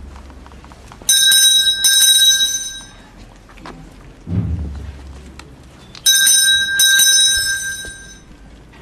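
A procession esquila (small hand bell) struck twice in quick succession, ringing bright and high, a pair of strokes about a second in and another pair about six seconds in. Between the pairs, a single low, muffled drum beat sounds at about four seconds.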